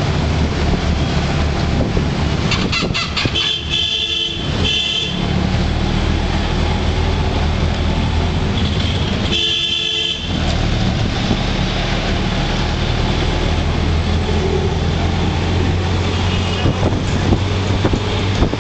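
Auto-rickshaw engine running with a steady low drone in dense traffic, with vehicle horns beeping: a loud double honk about four seconds in, one long honk around ten seconds, and fainter beeps near the end.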